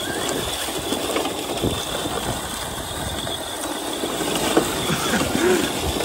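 Arrma Mojave 4S RC short-course truck driving and sliding over sand and pebbles: a steady mechanical whirring and rattling from its electric drivetrain, with tyres crunching and spraying gravel.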